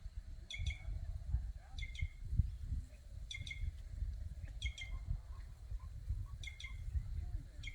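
Birds known locally as quem-quem calling. A short, high, doubled call repeats about every second and a half, six times. A low, uneven rumble runs underneath.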